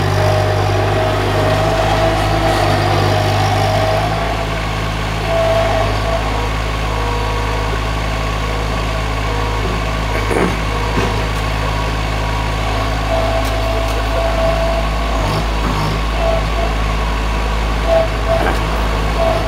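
Skid steer loader engine running steadily, with a higher whine that comes and goes.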